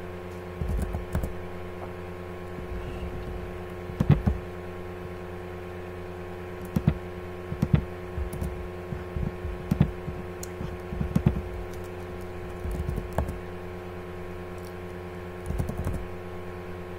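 Computer keyboard keystrokes and clicks in scattered bursts, over a steady electrical hum.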